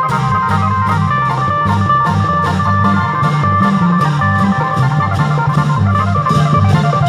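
Isan klong yao long-drum band playing a steady quick beat under a moving bass line and held, organ-like melody notes, amplified through a sound system.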